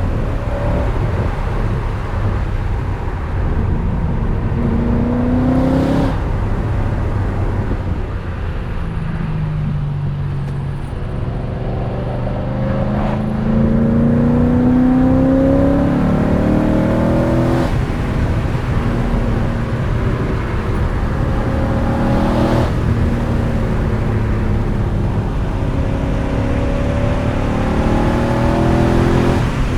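BMW E39 M5's 4.9-litre V8 accelerating hard through the gears: the revs climb and drop sharply at each upshift, about five times.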